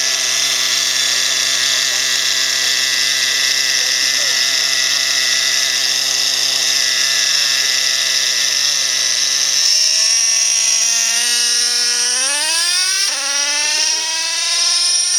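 Electric RC off-road car's motor whining at a steady pitch, dropping lower about ten seconds in, then rising sharply as it speeds up again.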